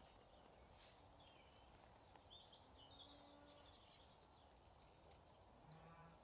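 Near silence: faint outdoor background noise. A bird chirps faintly a few times, about two and a half to three and a half seconds in.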